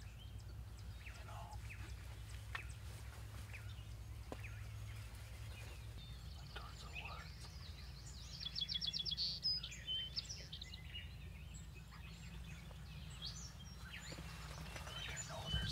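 A small songbird's rapid high trill about halfway through, with scattered faint chirps over a steady low rumble of outdoor background noise.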